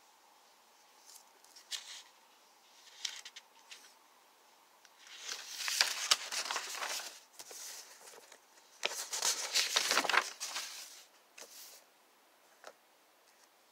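Sheets of printer paper rustling and crinkling as they are handled and turned over: a few small crackles, then two longer bursts of rustling near the middle.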